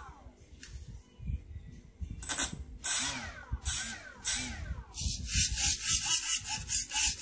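Elevon servos of a Wing Z-84 foam flying wing whirring in short bursts as the transmitter sticks drive the control surfaces up and down, each burst starting high and falling in pitch. From about five seconds in, a faster run of short buzzes, about five a second, as the stick is waggled quickly.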